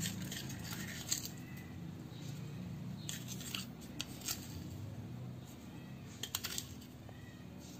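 Steady low hum with a few faint, scattered clicks and clinks of kitchen utensils.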